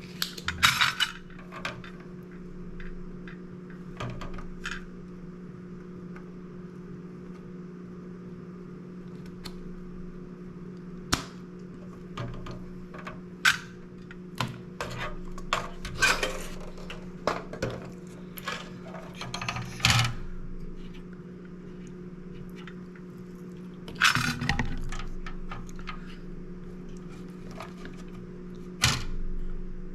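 Desoldering work on a circuit board: scattered sharp clicks and clinks of hand tools, a few louder snaps among them, over a steady low hum.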